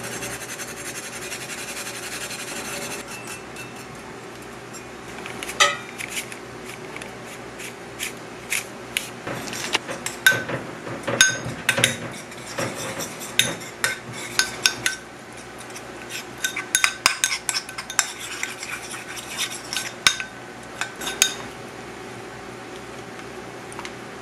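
A spoon stirring a thick basil-mayonnaise sauce in a small ceramic bowl, clinking and scraping against the sides in quick irregular taps, each with a short ring. The clinking starts a few seconds in and stops near the end.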